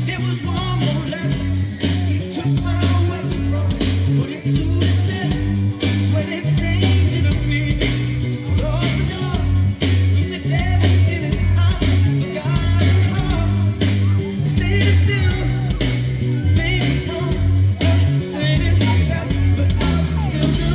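Live band playing amplified soul-pop with a heavy pulsing bass line and a singing voice over it, loud.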